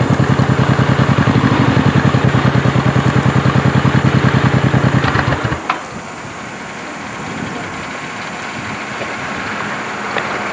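A vehicle engine idling with a fast, even pulse, stopping abruptly about halfway through. A quieter steady outdoor hiss remains after it.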